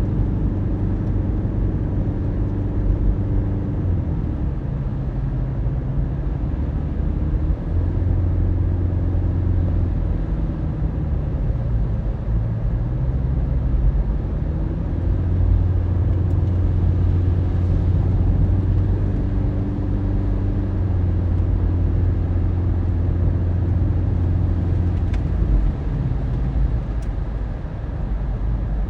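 Car driving on the road, heard from inside the cabin: a steady engine and tyre hum whose pitch steps up or down a few times as the speed changes.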